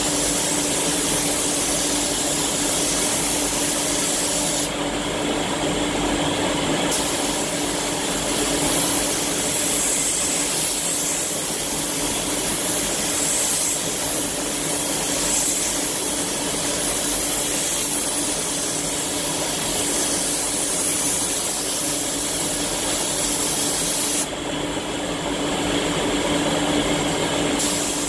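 Iwata Hakone spray gun hissing steadily as it sprays the second coat of clear coat. The hiss thins out twice, a few seconds in for about two seconds and again near the end for about three, as the trigger is let off between passes. A steady hum runs underneath.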